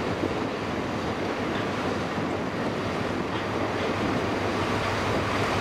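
Class 37 diesel locomotive's English Electric engine running steadily as it hauls coaches slowly along, mixed with wind on the microphone.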